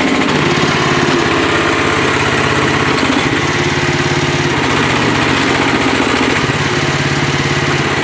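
Small single-cylinder-class gasoline engine of a 1-ton mini excavator running steadily, its pitch stepping slightly a few times as the hydraulics are worked.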